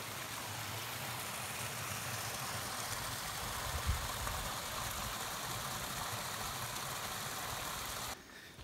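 Small forest stream splashing steadily down a little cascade over mossy rocks; the sound cuts off abruptly near the end.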